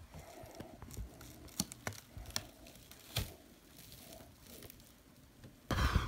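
Plastic masking being handled: crinkling and rustling, with scattered light taps and knocks, and a louder rustle near the end.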